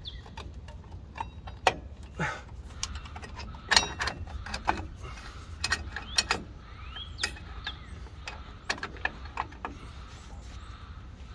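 Drum brake shoes and their spring hardware on a 1995 Ford F150's rear brake being worked into place by hand: irregular metallic clicks and clinks of metal on metal, over a steady low rumble.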